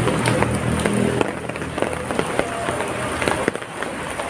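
Steady rain, with many heavy single drops ticking on a nearby surface. A low hum sits under it and fades out about a second in.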